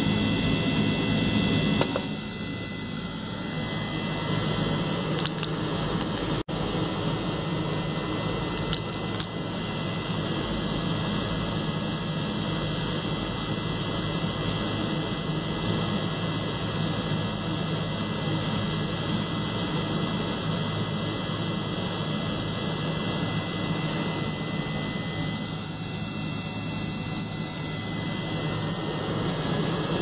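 A desktop ultrasonic cleaner and a small circulation pump run together, pushing water through tubing into a bubbling bottle in the bath: a steady hiss with a low hum. The sound cuts out for an instant about six seconds in.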